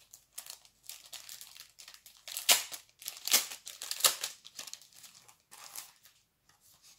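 Clear plastic photo sleeve crinkling as the signed photos inside are handled and slid out. The rustles come in an irregular run, loudest in the middle and thinning out near the end.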